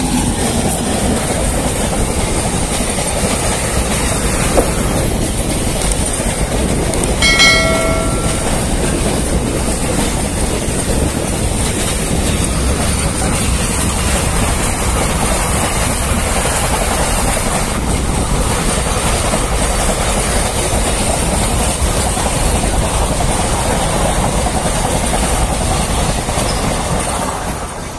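Train passing close by on the rails: a steady rumble with the clickety-clack of its wheels. A brief pitched tone sounds about seven seconds in, and the noise falls away near the end as the train goes past.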